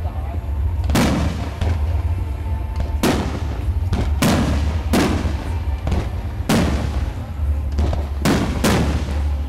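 Aerial firework shells bursting overhead: about eight sharp bangs at irregular intervals, each trailing off briefly, over a steady low rumble.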